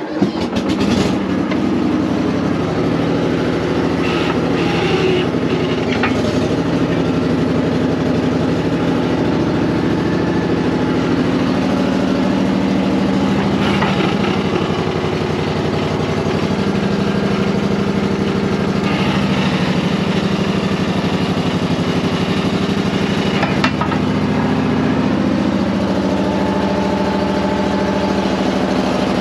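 Bobcat skid steer engine starting up and running steadily. Its note shifts a few times as the hydraulics are worked, testing the freshly repacked cylinders.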